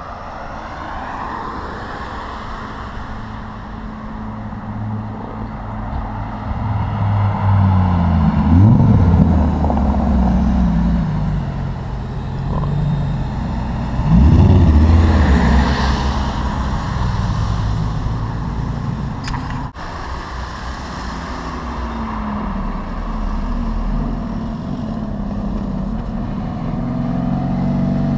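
Sports car engines accelerating and revving as cars pull away one after another. Two loud rising revs come about a third of the way in and halfway through, and a deep engine runs close by near the end.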